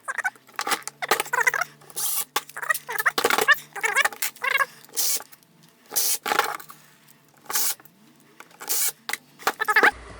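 Screws being tightened by hand into the plastic housing of a DeWalt DCD995 drill: a long run of short squeaky, scraping strokes, one every half second or so.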